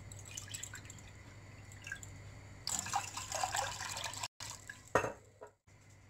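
Water poured into a steel saucepan of milk: a splashing, trickling pour for about a second and a half from just before the middle, cut off abruptly. A single knock follows about a second later.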